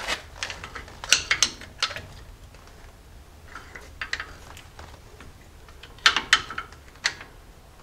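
Irregular metal clinks and taps as a screwdriver works the brake pad and a new slide pin is worked into a disc brake caliper, with the pin catching on the pad. The clinks come in short clusters, the loudest about a second in and about six seconds in.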